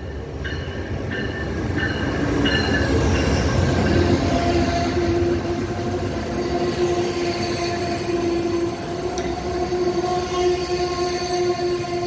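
Amtrak passenger train passing close by behind a GE P42DC diesel locomotive. The low rumble swells as the locomotive goes past, then the passenger cars roll by with a steady high-pitched squeal from the wheels.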